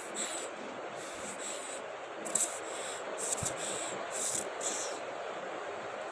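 About six short rubbing sounds over a steady hiss, stopping about five seconds in.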